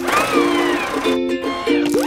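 Playful background music of short, repeated plucked chords, with whistle-like tones that slide up and down in pitch over it, and a brief swish at the start.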